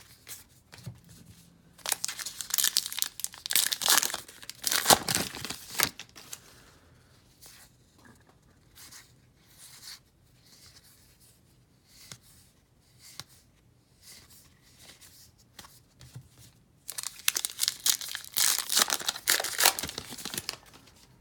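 Topps Heritage baseball card packs being torn open and their wrappers crinkled, in two loud bursts about two seconds in and again near the end, with soft crinkling between.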